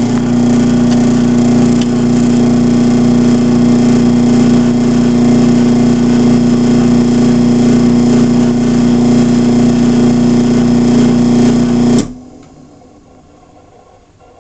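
Craftsman 1/2 hp garage door opener running through an opening cycle: its motor gives a loud, steady hum for about twelve seconds, then stops suddenly.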